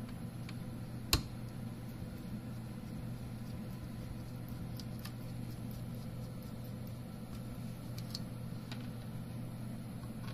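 Steady low mechanical hum, with a few small clicks over it; the loudest click comes about a second in.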